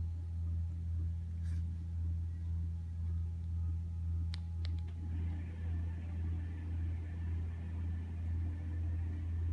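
Motorized TV lift in a bed-end cabinet running as it lowers the TV: a steady low hum with a slight regular pulsing. A few sharp clicks from remote-control button presses come about four seconds in, and a second, higher motor whir joins about a second later.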